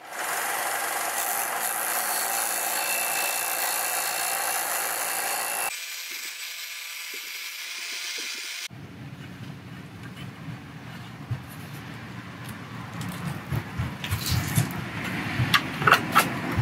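Benchtop belt-and-disc sander running while a PVC board is pressed against its sanding disc, a steady hiss that drops off abruptly after about six seconds. Near the end, several sharp clicks and knocks as the sander's table angle is adjusted.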